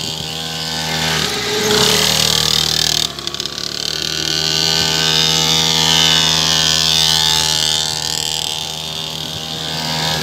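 Small mini dirt bike engine running as it circles, its note rising and falling with the throttle, easing off briefly about three seconds in before picking up again.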